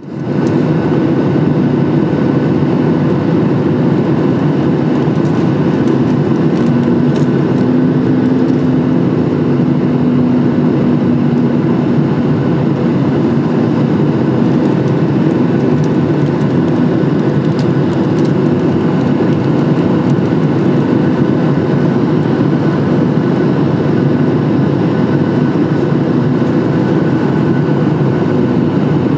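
Steady cabin drone of a Boeing 737 MAX 8 in flight: its CFM LEAP-1B engines and the airflow over the fuselage make an even rushing hum with a few faint steady tones.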